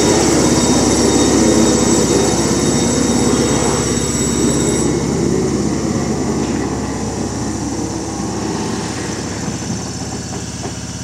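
Hokuriku Railroad 7700-series electric train (ex-Keio 3000 series) pulling slowly into a terminus platform and coming to a stand. It runs with a high whine that cuts off about five seconds in, then gets gradually quieter, leaving a steady low hum from the standing train.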